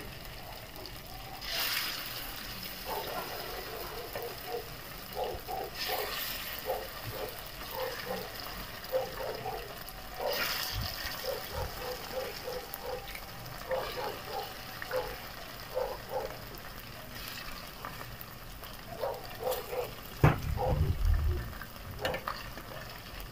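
Raw chicken breast pieces frying in hot oil in a nonstick pan: a steady sizzle with bubbling crackles. It swells briefly three times as more pieces go into the oil. Near the end there are a couple of heavier knocks as metal tongs turn the pieces.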